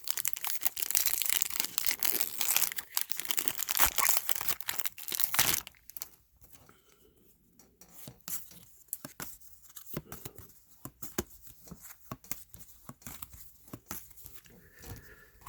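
Trading-card pack wrappers being torn open and crinkled for about the first five and a half seconds, then a quieter stretch of scattered light clicks as the cards are handled and flipped through.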